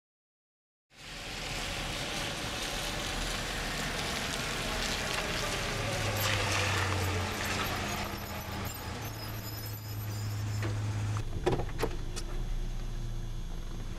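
Car running, heard from inside the cabin: a steady engine hum and road noise that start about a second in, with a few sharp clicks near the end.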